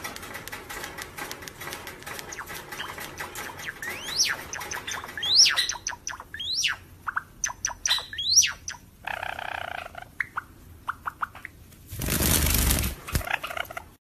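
Java sparrow singing: a run of dry clicks mixed with quick rising whistled notes. A loud rush of noise follows near the end.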